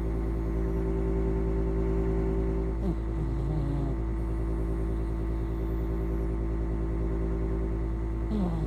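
A pet snoring twice, about five and a half seconds apart. Each snore falls in pitch and then holds low for a moment, over a steady low hum.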